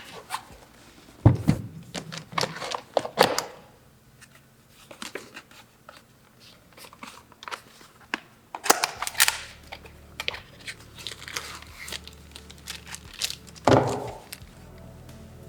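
Packaging being handled: intermittent crinkling, rustling and tearing with a few sharp clicks and knocks, in separate bursts.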